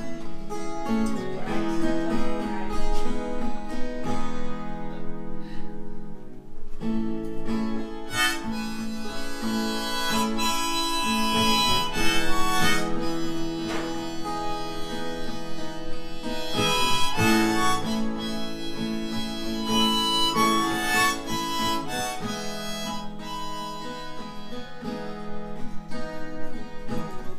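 Acoustic guitar strummed with a harmonica playing long held notes over it: the instrumental intro to a song.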